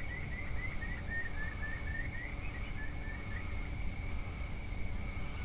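Wild bird calling in a quick run of short, repeated notes for the first three seconds or so, with a few more notes near the end, over a steady high-pitched tone and a low rumble.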